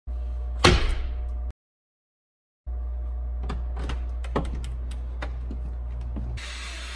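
Light knocks and taps on a glass door, with one louder knock about a second in, over a steady low hum. The sound cuts out completely for about a second, then several more sharp taps and knocks follow.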